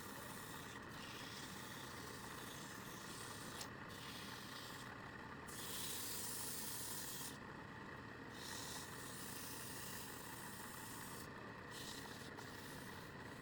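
Wood lathe running steadily, with a hiss that comes and goes as a tool or sandpaper is held against the spinning wood, loudest about six to seven seconds in.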